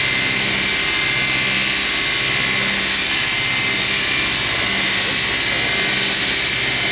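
Double-spindle multi-blade ripsaw with 355 mm circular blades running steadily under power, a loud even hiss with a steady high whine.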